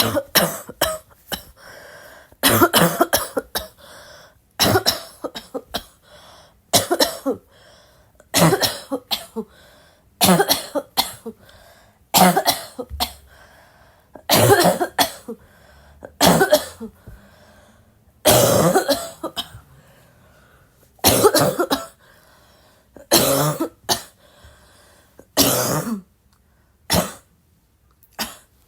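A person coughing non-stop: a bout of a few harsh coughs about every two seconds, with short pauses between bouts.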